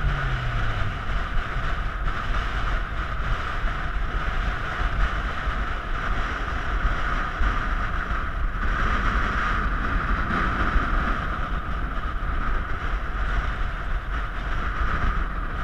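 Strong wind buffeting the microphone: a steady rushing noise with a low rumble.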